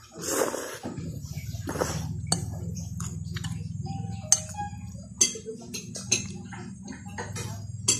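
A person slurping pancit chami noodles twice, then chewing while a metal fork clinks against the ceramic bowl about once a second, over a steady low hum.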